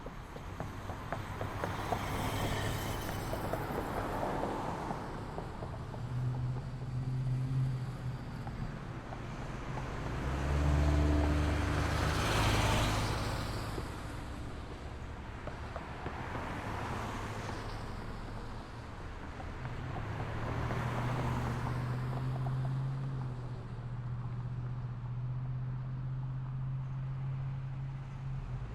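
Street traffic ambience: a steady rumble of road traffic with cars passing one after another, the loudest, with the deepest engine rumble, going by about twelve seconds in.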